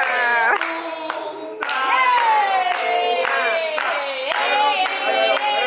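A group of voices singing together, with hands clapping in time about twice a second.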